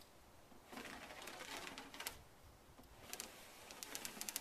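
Plastic squeegee being worked firmly over a wet vinyl sign on a trailer door: two passes of faint scraping with small clicks in them, pressing out the application fluid.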